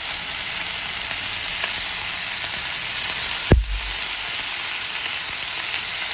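Cubes of sweet potato frying in hot oil in a kadai, a steady sizzle. One sharp knock with a low thud comes about three and a half seconds in.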